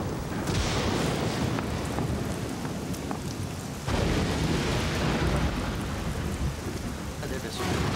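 Heavy rainstorm: dense pouring rain over a low rumble of thunder, with a sudden louder crack about four seconds in.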